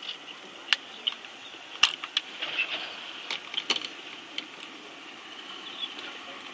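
High-pitched animal squeaking and chirping, with scattered sharp clicks.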